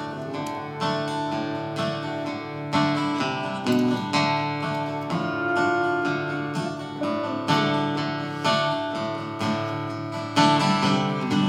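Acoustic guitar strumming a steady chord pattern: the instrumental intro of a folk song, just before the vocals come in.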